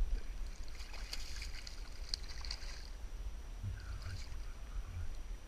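A hooked salmon splashing in shallow water at the edge of a grassy bank, the splashes bunched in the first few seconds, over a steady low rumble.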